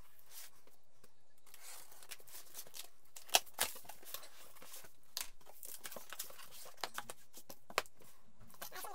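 Cardboard shipping box being opened by hand: packing tape cut and torn, flaps folded back, with scattered rustling and a few sharp knocks, the loudest a little over three seconds in.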